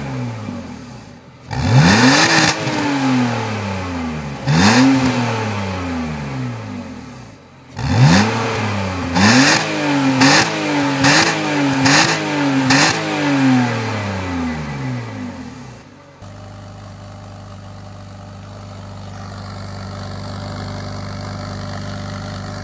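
BMW E46 330Ci's stock 3.0-litre M54 straight-six and exhaust, warm, revved several times: each rev rises sharply and falls back, with a quick run of about five blips in a row midway. About 16 seconds in it cuts to the same engine idling steadily from a cold start.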